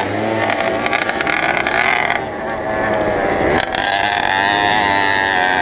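Small two-stroke moped engine running at high revs with a wavering whine, easing off about two seconds in and picking up again a little later.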